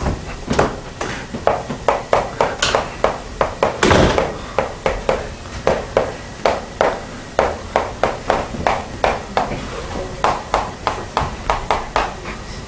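A run of sharp, irregular taps and clicks, about two to three a second, with a louder knock about four seconds in.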